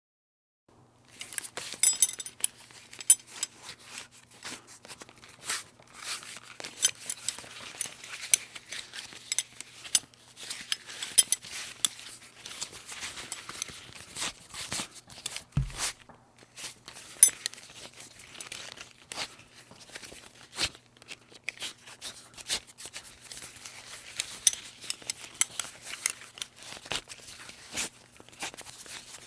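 Metal buckle being handled over and over: a long run of sharp clicks and small metallic clinks, with the strap rustling between them. A single low thump comes about halfway through.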